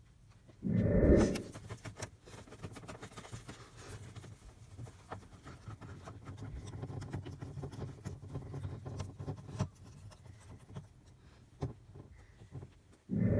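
Handling noises from parts being worked by hand: rubbing and scraping with many small clicks. A short, loud low thump comes about a second in and another at the very end.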